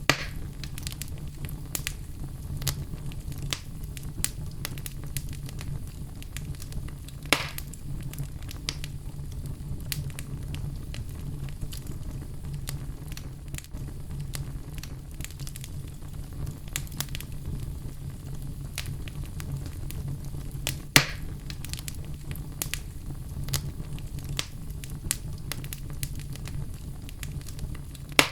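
Fire in a fireplace crackling, with many small snaps over a steady low rumble and two louder pops, one about seven seconds in and one a little past twenty seconds.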